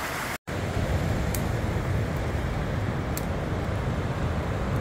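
A rocky creek babbling briefly, cut off after a moment, then the steady rush and deep rumble of ocean surf breaking on a beach, with a few faint clicks.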